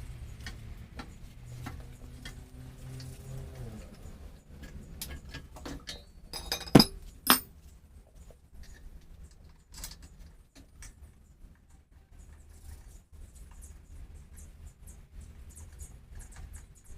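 Scattered light handling clicks with two sharp metallic clinks about seven seconds in, the sound of small metal tools or parts being handled and set down.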